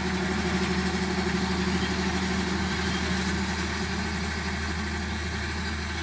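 Japanese rice combine harvester's diesel engine running steadily with an even hum, fading slightly toward the end.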